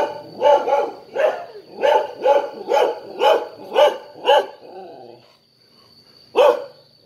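A dog barking off-camera in a quick run of about nine barks, roughly two a second, then a pause and one more bark near the end.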